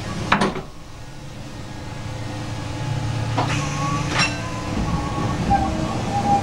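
Sydney suburban electric train running along the track, heard from on board: a steady low rumble and hum that drops briefly and then builds back up, with a few sharp clicks from the wheels on the track.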